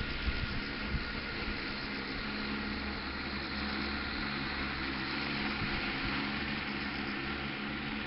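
10-litre agricultural spraying drone in flight, its propellers giving a steady whirring hum.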